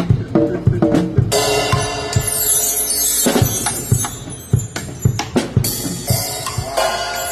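Drum kit played during a sound check: steady bass drum and snare hits, with cymbal crashes coming in about a second in and again near the end.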